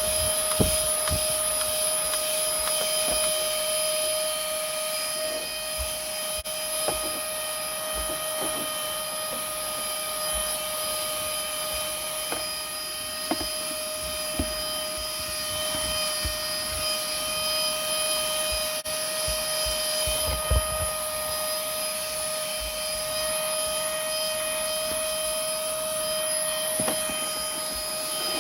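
Cordless handheld vacuum cleaner running steadily: a constant high motor whine over a rush of air, with occasional light knocks as it is handled or bumps a surface.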